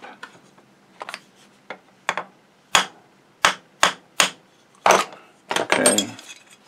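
A dozen or so light, sharp taps on a metal punch, irregularly spaced, driving a bronze-type motor bushing a little further into the housing of a Singer 201-2 potted motor to take out the shaft's end play.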